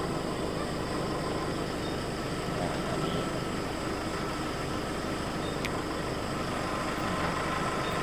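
Steady night-time background noise: a constant low rumble with faint steady high-pitched tones above it, and one faint click about halfway through.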